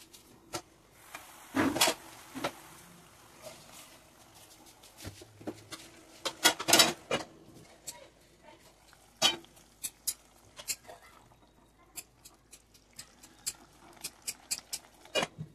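Scattered sharp clicks and knocks of cookware at a stovetop pot: a metal lid, the pan and a spatula. The loudest cluster of knocks comes about seven seconds in.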